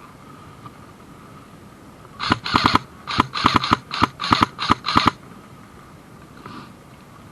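Airsoft gun firing several short bursts of rapid clicking shots, one after another, from about two seconds in to about five seconds in.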